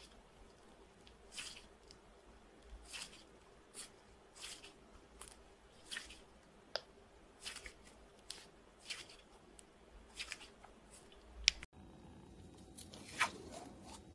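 A hand squeezing and kneading firm, translucent slime, making a string of short squishes about one or two a second, with one sharper click a little after eleven seconds.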